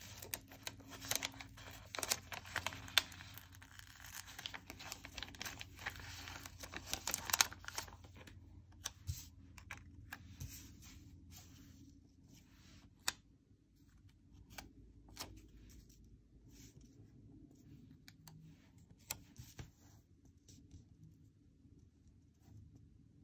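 Paper sticker being peeled off its backing sheet, a dense crackling rip with sharp clicks for the first several seconds, then scattered light taps and paper rustles as it is handled and pressed onto a planner page.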